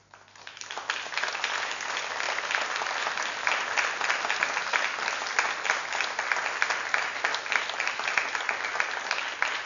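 Theatre audience applauding, swelling up over the first second and then holding steady.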